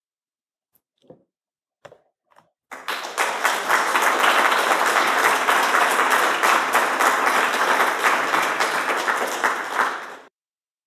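Audience applauding, starting a few seconds in and cutting off suddenly near the end.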